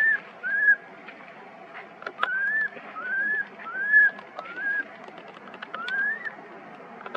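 Infant long-tailed macaque crying: about seven short, high, whistle-like coos, each rising in pitch, in irregular bursts. These are distress calls for its mother.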